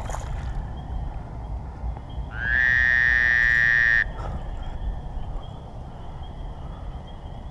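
Fishing reel's drag buzzing as a hooked largemouth bass pulls line near the boat, a steady buzz lasting about a second and a half that starts a little over two seconds in and cuts off suddenly.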